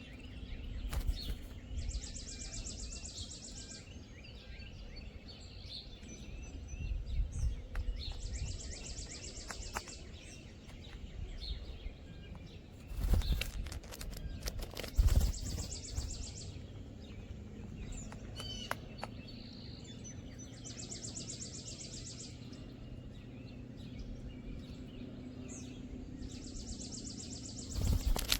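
A small songbird repeating a fast, high, evenly pulsed trill about every six seconds, five times, with faint chirps from other birds between. Several low thumps and rumbles, like wind on the microphone, come and go.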